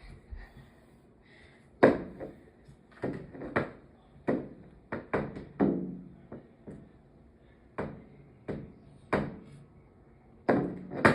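Irregular series of sharp knocks and thuds, about fifteen of them, from a baseball being banged against hard surfaces in attempts to hit a moth.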